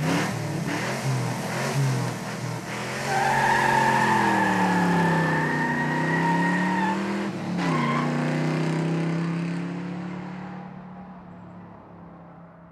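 Car engine revving, its pitch falling and rising, joined for a few seconds by a high steady squeal. The engine note then settles and fades out near the end.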